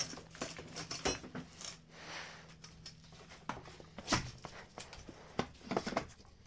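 Folding lawn chair being handled and folded: a scattered series of light clicks, knocks and frame clatter, the sharpest knock about four seconds in.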